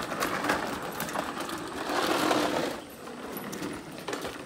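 Hard plastic wheels of a toy dump truck rattling and grinding as it is pushed along a rough concrete sidewalk, loudest about two seconds in.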